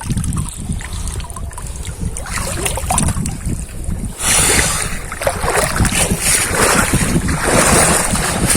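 Wind rumbling on the microphone beside the river, with two louder stretches of rushing noise, one about four seconds in and one near the end.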